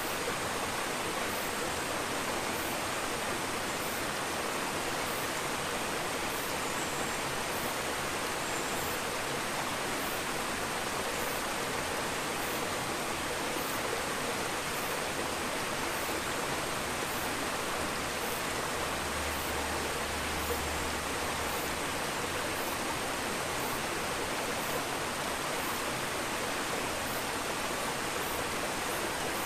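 Aquarium water rushing and bubbling as a steady hiss, with a faint high whine held throughout.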